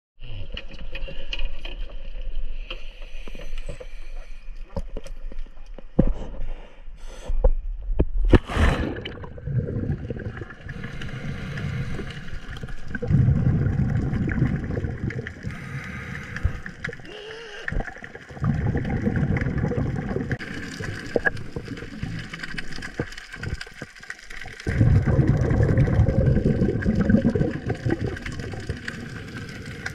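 Water gurgling and sloshing against the microphone, with many small clicks and a few louder rushing stretches a few seconds long.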